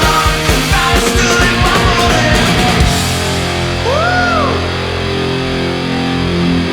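Heavy rock music with a driving beat. About three seconds in the beat drops away, leaving held chords with one note sliding up and back down.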